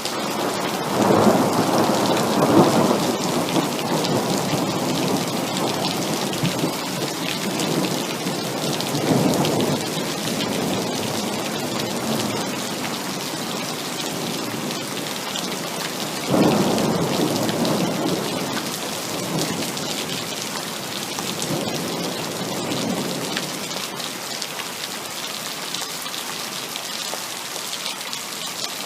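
Heavy rain falling steadily, with several rolls of thunder. A strong rumble comes about a second in, a weaker one about a third of the way through, and a sharp-onset roll a little past halfway, followed by a fainter rumble.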